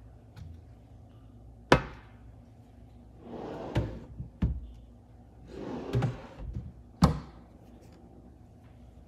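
Wooden cabinet doors and drawers being worked by hand. There is a sharp knock, then two wooden drawers sliding with a rubbing sound, each ending in a knock, the last one sharp, near the end.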